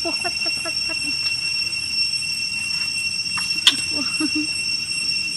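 Young macaques giving a quick run of short squeaks in the first second and a few fainter calls later, over a steady high-pitched whine. A single sharp click comes about three and a half seconds in.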